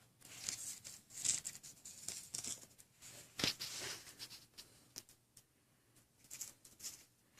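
Irregular gritty scraping and crinkling of a smashed smartphone's crushed glass on concrete, with small clicks and a sharper tap about three and a half seconds in.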